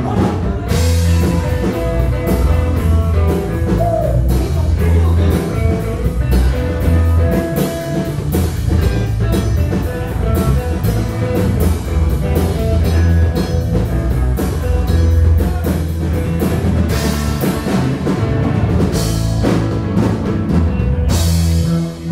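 Live rock trio playing: electric guitar, electric bass and drum kit, with a steady bass line under frequent cymbal hits and a few loud crashes.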